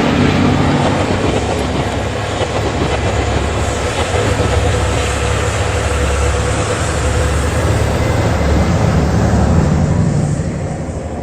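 Locomotive-hauled passenger train of 12-series coaches rolling past close by, a loud steady rumble of wheels on rail that starts to fade near the end.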